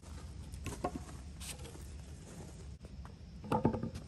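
Wooden boards of pressure-treated lumber knocking and clattering against each other as they are carried and set down on a stack. A few light knocks come about a second in, and a louder quick cluster of knocks comes near the end.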